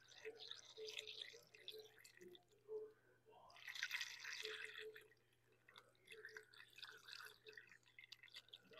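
Faint trickling and dripping of antifreeze being poured into the radiator to top off the coolant, with a louder, fuller stretch of pouring around the middle.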